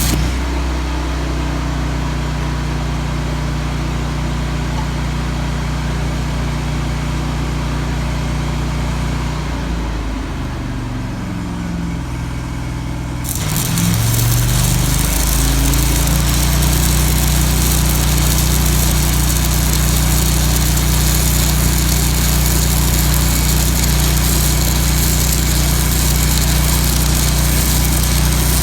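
Lincoln Ranger 250 engine-driven welder running with the arc out. About 10 s in, the engine note changes. Near 13 s a 3/16-inch 5P+ stick electrode arc is struck at about 250 amps: a steady crackling hiss starts suddenly and the engine revs up under the welding load.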